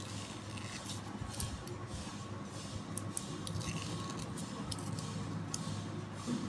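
Craft knife tip and fingers picking and peeling cut vinyl sticker pieces off the backing sheet: scattered small scratchy ticks and crackles over a steady low hum.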